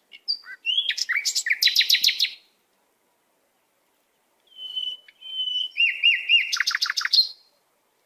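A small songbird singing two phrases about two seconds apart, each a few whistled, sliding notes that run into a quick trill of repeated notes.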